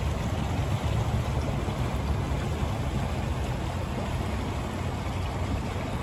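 Shallow creek water running over a pebble bed: a steady rushing with a low rumble underneath.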